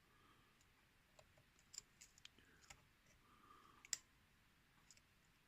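Faint, irregular ticks and light scraping of a lock pick working the pins of a challenge lock under tension, with one sharper click about four seconds in.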